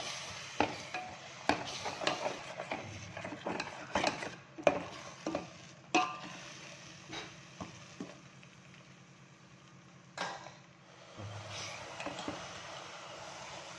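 Metal ladle stirring a thick masala in a stainless steel pot, with a run of scrapes and knocks against the pot in the first six seconds. Then it goes quieter, with a single knock about ten seconds in.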